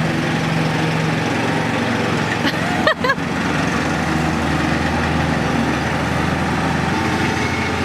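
Riding lawn mower engine running steadily, with a brief break in the sound about three seconds in.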